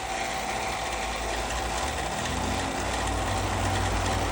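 Electric 1/3 hp vacuum pump running steadily with a constant hum and whine, pulling vacuum on a small chamber; its low hum grows louder about halfway through.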